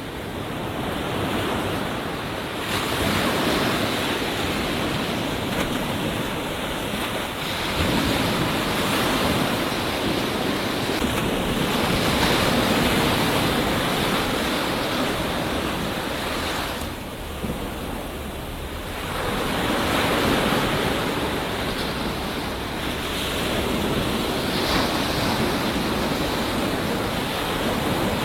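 Ocean surf breaking on a beach: a continuous rushing wash of white water that swells and eases every few seconds, with a brief lull about two-thirds of the way through.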